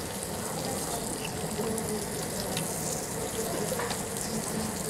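Beef intestines (gopchang and daechang) sizzling steadily on a hot grill tray, with a few faint scattered clicks.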